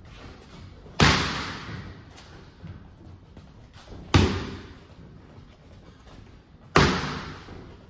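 Boxing gloves striking focus mitts: three loud smacks of single straight punches, roughly three seconds apart, each followed by a short echo.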